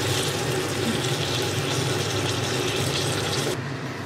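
Beef slices searing in a rectangular frying pan, a steady sizzling hiss over a low hum. The sizzle cuts off suddenly about three and a half seconds in, leaving only the hum.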